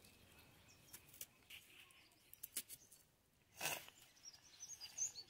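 Faint rasps and clicks of a small red onion being peeled and cut against a curved floor-mounted blade (a boti), with one louder scrape about three and a half seconds in. Small birds chirp near the end.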